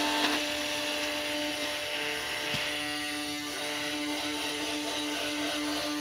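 Toy lightsaber humming steadily over a hiss.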